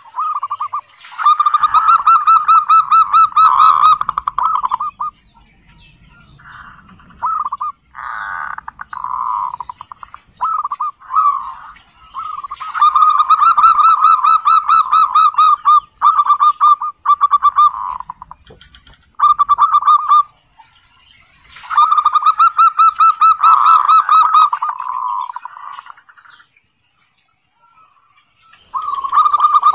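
Zebra dove (perkutut) calling in the harsh kerot (ngerot) style. Repeated bouts of rapid, pulsed cooing notes last a few seconds each, with short pauses between them.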